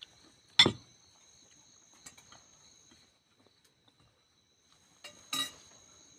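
Steady high-pitched insect trilling, like crickets, in the background. A short loud knock comes about half a second in, and a weaker one about five seconds in.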